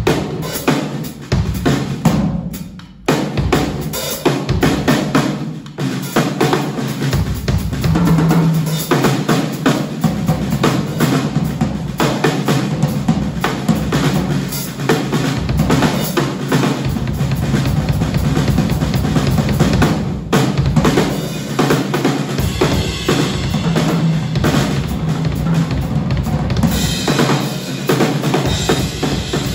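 Electric bass guitar and a Yamaha drum kit playing jazz-funk live: busy kick, snare and cymbal work over a bass line, with a brief break about three seconds in.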